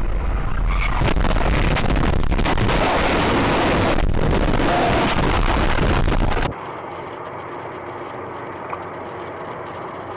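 Dashcam audio of a car crash: loud, rough noise with repeated bangs for about six and a half seconds. It then cuts suddenly to the quieter, steady road noise of a car driving on a highway.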